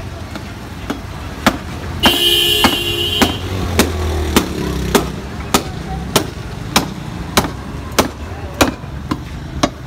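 A butcher's cleaver chopping through a rack of beef ribs on a wooden block, with a steady run of sharp chops a little under two a second, portioning the ribs into pieces. A vehicle horn sounds for about a second early on, over low street traffic.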